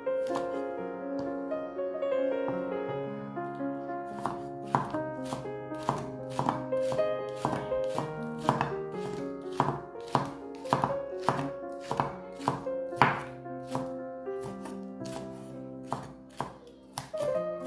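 Chef's knife slicing a spring onion on a wooden cutting board: a steady series of sharp chops against the wood, about two a second, starting about four seconds in. Background music plays throughout.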